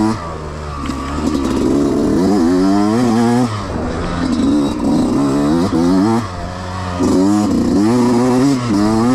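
Two-stroke Yamaha YZ125X dirt bike engine being ridden on and off the throttle. The revs climb in pitch several times and drop back sharply when the throttle is shut, about three and a half and six seconds in.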